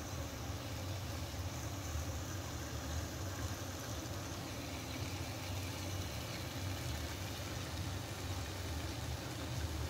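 Steaming pan of diced turnip sabzi cooking on a gas stove: a steady low hum under a faint, even sizzling hiss.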